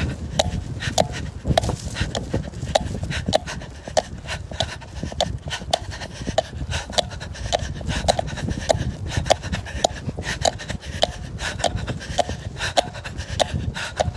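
Heavy rhythmic panting while running, about two breaths a second, with the jolts of running footfalls and a low rumble of wind and handling on the handheld phone.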